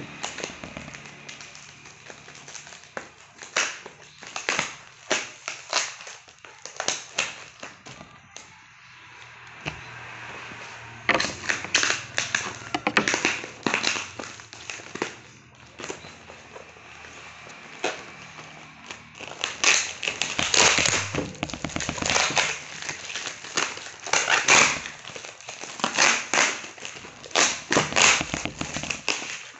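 Plastic parcel wrapping and packing tape being picked at, peeled and pulled, crinkling and crackling in irregular bursts that grow louder and denser in the second half.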